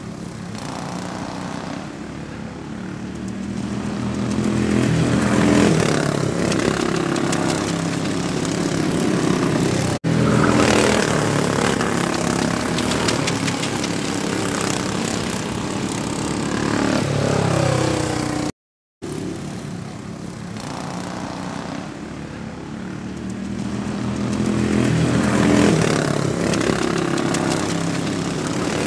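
Small race-car engines running on a track, cars passing with the engine sound swelling and fading. The sound breaks off briefly about a third of the way in, and cuts out for a moment about two-thirds of the way in.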